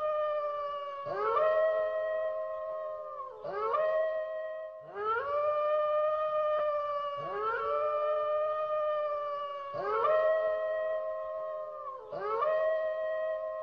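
Long, drawn-out wailing howls repeating about every two and a half seconds, six in all. Each rises quickly and then holds one steady pitch, with a second, slightly lower voice overlapping it. The recording is offered as the weeping of La Llorona.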